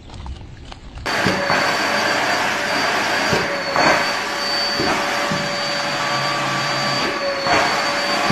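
Vacuum cleaner running: a steady rush of air with a high whine, starting suddenly about a second in, with a few brief flickers in the sound.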